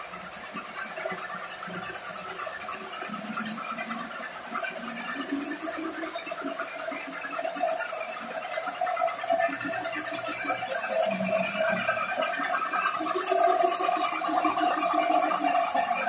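Electric belt-sanding machine running with a steady whine while the edge of a glass sheet is ground against its abrasive belt, a rough rasping noise that gets louder toward the end.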